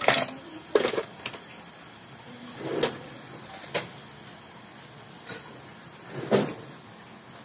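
Tools being handled on an electronics workbench: a cluster of sharp clicks and knocks, then two short rushing scrapes with single clicks between them.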